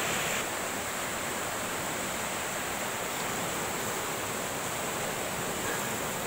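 Steady rushing of a flooded river in spate, fast brown water running high over its rocky bed.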